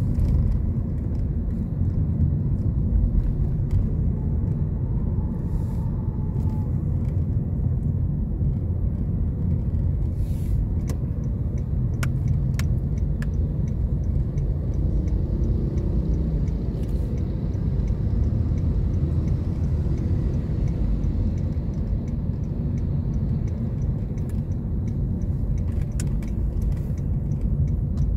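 Car driving in traffic heard from inside the cabin: a steady low rumble of engine and road noise, with a few faint clicks.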